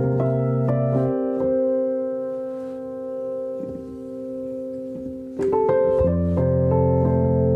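Solo piano music playing slow, sustained chords. The chords fade softer through the middle, then a fuller, louder chord comes in about five and a half seconds in.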